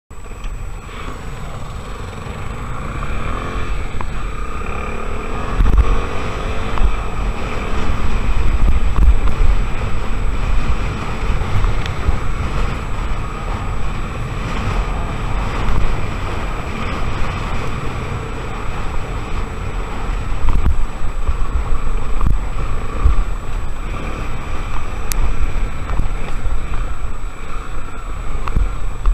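Honda XR 250 Tornado's single-cylinder four-stroke engine running while the bike is ridden, with heavy wind buffeting on the microphone. The revs climb about three to four seconds in, and the engine and wind keep going loud and uneven throughout.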